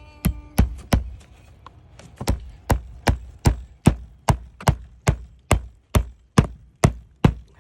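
A hammer driving a roofing nail into a wood shake: three quick taps, a short pause, then a steady run of about a dozen blows, roughly two and a half a second.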